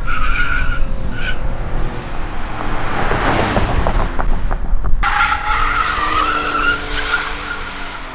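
Ford F-150's 2.7 L twin-turbo EcoBoost V6 revving hard under full throttle, with tyres squealing and a loud rush as the truck passes close about three to four seconds in. After a sudden change about five seconds in, the tyres squeal steadily in a burnout over the running engine.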